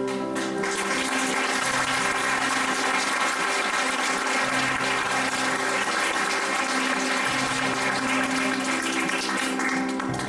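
Audience applauding, a dense steady clatter of clapping that cuts off near the end.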